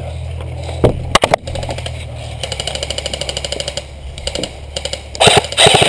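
Airsoft guns firing. A rapid even string of clicking shots comes about two and a half seconds in, then a few shorter strings, and louder clattering shots near the end.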